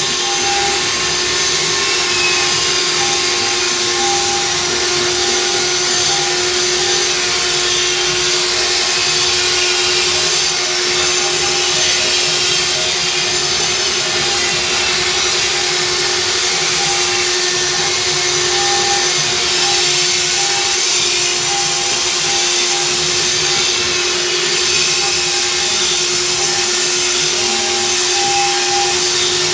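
CNC stone-carving router running: a steady spindle whine over a constant hiss of cutting noise, with a fainter higher tone that comes and goes.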